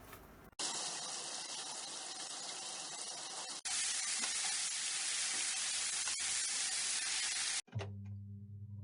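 A steady, loud hissing noise, like spray or sizzling, that cuts in sharply about half a second in, breaks off briefly twice, and stops suddenly near the end.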